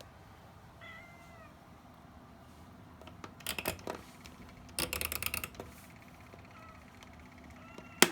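Kittens meowing faintly, once about a second in and again near the end, with two louder noises in the middle and a sharp click at the very end.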